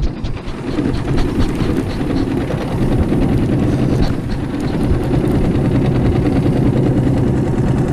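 Small boat's outboard motor running steadily at low speed, a continuous low hum.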